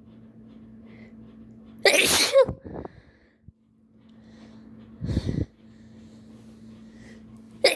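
A person sneezing: a loud sneeze with a falling voiced cry about two seconds in, a second, shorter sneeze about five seconds in, and a third starting right at the end. A faint steady hum sits underneath.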